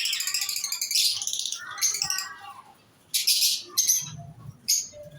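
Small cage birds in an aviary chirping. A rapid high chittering runs through the first second, a few pitched calls follow, and short sharp bursts come in the second half.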